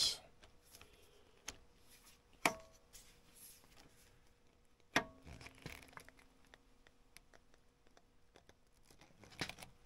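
Hand rivnut tool's long lever handles being squeezed hard to crush and set a rivet nut. Mostly quiet, with two sharp clicks about two and a half seconds apart and a few lighter ticks near the end.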